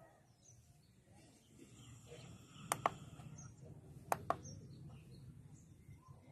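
Pruning shears snipping twice, each snip a pair of quick sharp clicks, the second pair about a second and a half after the first, as the stem of a freshly picked dragon fruit is trimmed. Faint bird chirps sound in the background.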